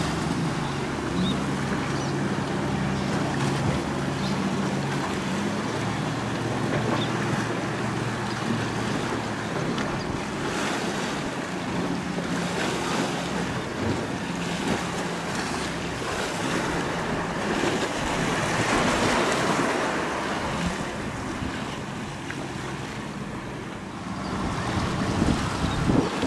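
Wind buffeting the microphone over the wash of waves, with a passing boat's engine droning steadily for the first five or six seconds before it drops away.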